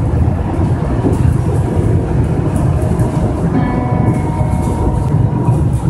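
Rubber-tyred monorail train running at speed, heard from inside, with a steady, heavy low rumble from the running gear on the guideway as it slows slightly. About halfway through, a faint whine of several steady pitches joins the rumble.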